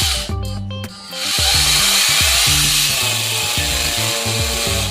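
Electric drill boring holes in the wall for the water heater's mounting fasteners. It runs briefly at the start, pauses for a moment, then runs continuously again from about a second in. Background music with a steady bass line plays under it.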